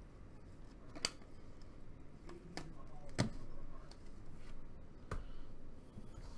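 Donruss Optic football trading cards handled by hand: a few short sharp clicks and taps as cards are flipped through and a stack is set down, the loudest a little past the middle.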